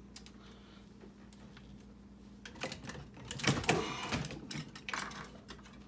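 Clicks, rattles and scraping of a screw and a freezer panel being handled and worked into place, starting about two and a half seconds in after a quiet stretch.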